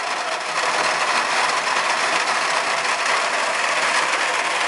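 Steady, even noise of a severe thunderstorm's heavy rain and strong wind.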